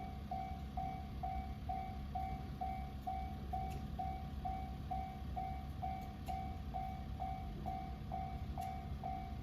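Level-crossing warning bell ringing its repeating electronic ding at an even pace of about two strikes a second, over a low rumble.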